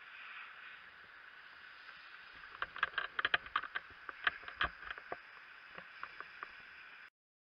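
Fire-hose water stream hissing steadily as it is played onto a burning building, with a run of sharp crackles and clicks from about two and a half seconds in. The sound cuts off suddenly near the end.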